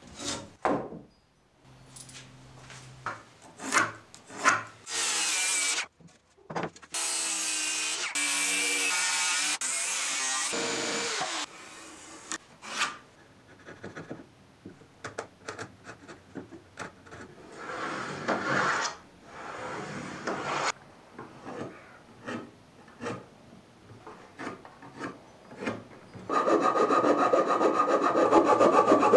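Hand tools working a wooden board: a chisel paring out a V-notch, with scattered knocks and taps, a steady stretch of cutting strokes about six seconds in, and fast, loud scraping strokes near the end.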